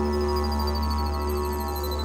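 Background music built on a didgeridoo: one steady low drone with its overtones held, and thin high tones drifting slowly above it.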